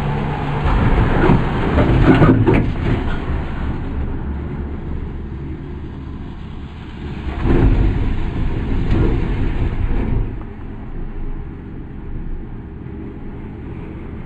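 Gondola cabin heard from inside, rumbling and clattering as it rolls through the summit station and out onto the cable. About halfway through, a second loud rattling rumble comes as the grip runs over the sheaves of a lift tower, then it settles into a quieter steady hum.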